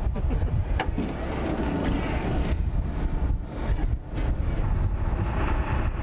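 Fishing boat's engine running steadily with a low rumble, on a sea trial just after the engine was repaired. A sharp knock or two on deck near the start.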